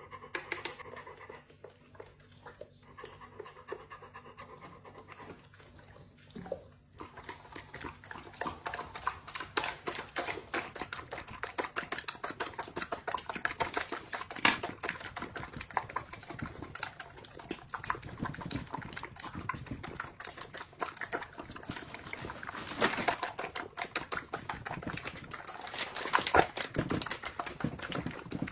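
A Chinese pastoral dog panting, with a dense run of quick clicks and ticks through most of it after the first few seconds.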